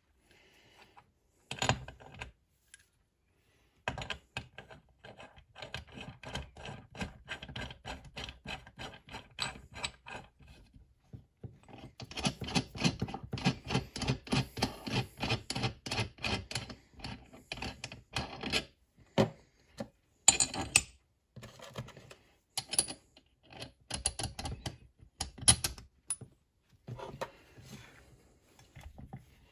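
Metal chainsaw parts being handled and fitted into an aluminium crankcase half on a workbench: two long runs of rapid clicking and rubbing, then a few sharper knocks near the end.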